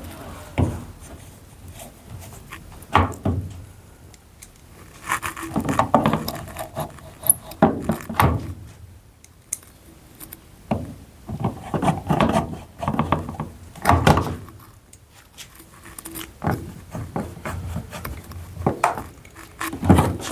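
Irregular knocks, clicks and rattles of hard plastic parts and screws being handled and fitted while a washing machine's control panel is put back together, with clusters of clatter and single sharp knocks.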